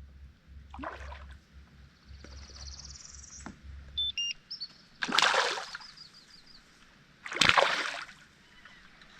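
Water splashing and sloshing in three short bursts, about a second in, around five seconds in and near seven and a half seconds.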